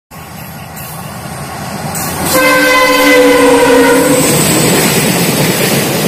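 WDG5 diesel locomotive's horn sounding once for about two seconds, a little past two seconds in, over the rumble of an approaching train that grows steadily louder and carries on after the horn stops.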